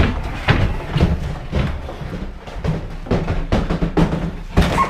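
Footsteps walking, about two heavy thuds a second, with a knocking, wooden ring.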